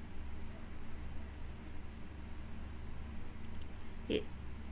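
A cricket chirping steadily in the background, a high, rapidly pulsing trill, over a low hum. A brief faint knock comes about four seconds in.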